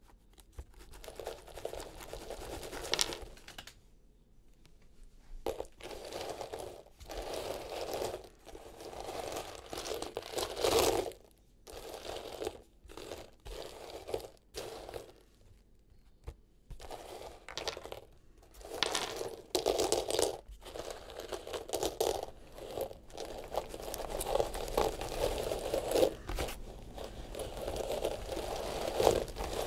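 Dried runner beans being scooped and stirred by hand on a hard surface, clicking and rattling against one another in irregular bursts with short pauses, more continuous in the second half.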